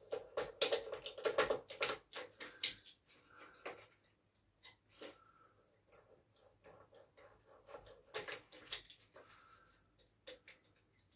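Irregular runs of small sharp clicks and taps from handling and fitting small pieces of balsa wood and model bridge parts, busiest in the first three seconds and again briefly near the end.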